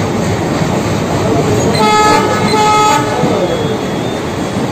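Train horn sounding two short toots, about half a second each, around two seconds in, over a steady running-train noise.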